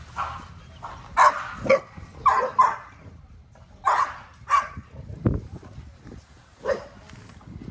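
XL American bully dogs barking: about seven short, separate barks spread over several seconds.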